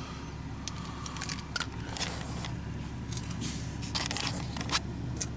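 Metal hand tools clinking and clicking as a 1/2 inch short socket and ratchet are handled, in scattered separate clicks with a denser cluster about four seconds in.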